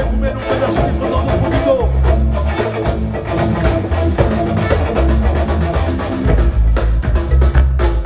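Live band playing loudly through the PA: drum kit, congas, electric guitars and bass in a manguebeat groove with a heavy low end, heard from the audience in front of the stage.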